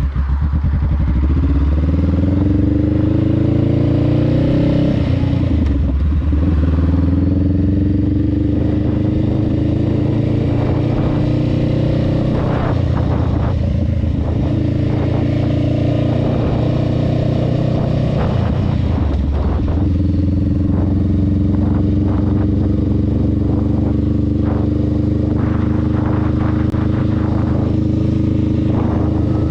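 Honda Rebel 500's parallel-twin engine, fitted with a Vance & Hines exhaust, under way: it pulls up through the gears with rising pitch, shifting about five seconds in. About two-thirds of the way through it eases off and picks up again, then runs steady at cruising speed.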